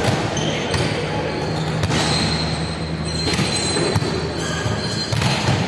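A ball bouncing on a hardwood sports-hall floor, a few scattered thuds echoing in the large hall over a steady background din.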